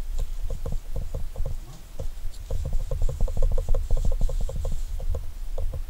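Fingers rubbing lard into a leather knife sheath: a fast run of short rubbing strokes, several a second, quickest in the middle.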